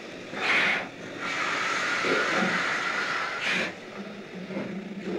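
Steam locomotive letting off steam: a short blast about half a second in, then a longer blast lasting about two and a half seconds that stops abruptly.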